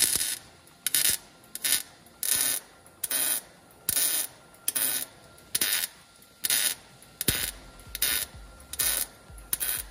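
MIG welder stitch-welding steel on a truck's frame rail: a short burst of arc crackle about every three-quarters of a second, a dozen or so in a row, each stopping as the trigger is released.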